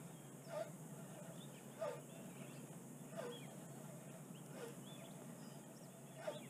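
Faint outdoor ambience with an animal giving short, downward-sliding calls, one about every second and a half, and small birds chirping now and then.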